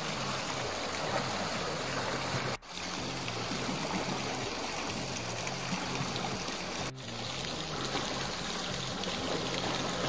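Seawater lapping and trickling around shoreline rocks: a steady wash of water noise, broken by two brief dropouts about two and a half and seven seconds in.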